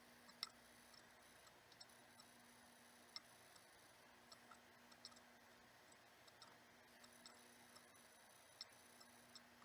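Near silence with a faint steady hum, broken by small, irregular clicks and ticks from hands handling and placing small decorations inside a bird cage.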